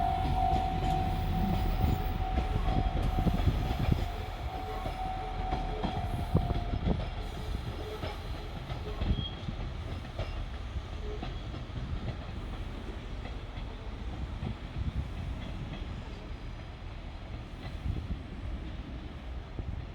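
KiHa 185 series diesel train running past with a low rumble and wheels clicking over the rail joints, fading away after the first few seconds. A steady high tone sounds over it and stops about seven seconds in.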